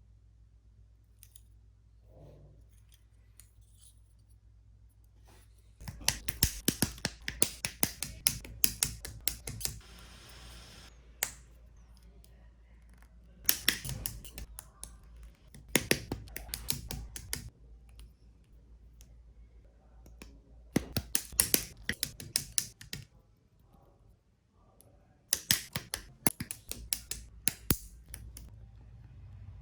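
Plastic model kit being worked by hand: clusters of rapid, sharp plastic clicks and snips, as parts are cut and snapped together, in about five bursts with quiet gaps between.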